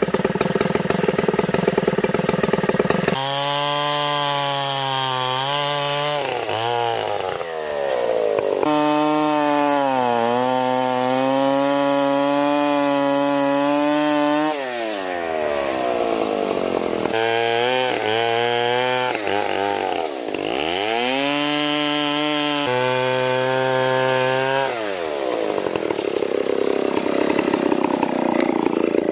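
Two-stroke chainsaw bucking a large white oak log. It idles briefly, then runs at full throttle as it cuts, its revs dipping and climbing again several times. It drops back to idle near the end.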